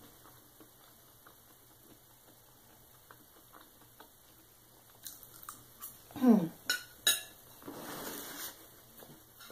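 Fork and knife clinking and scraping against a ceramic plate as the plate is handled, in a cluster of sharp clicks from about five seconds in. The loudest moment is a brief falling squeak about six seconds in.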